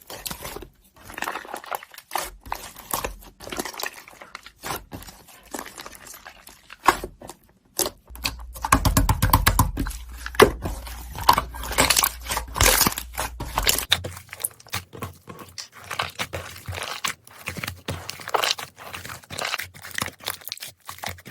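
Slime being squished and pressed by hand, giving a dense run of crackling, popping clicks.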